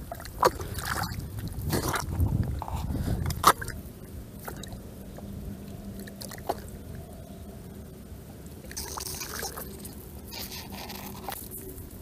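Wet mud and shallow water squelching and splashing as a hand digs and gropes into a muddy eel hole, in irregular bursts, most of them in the first few seconds.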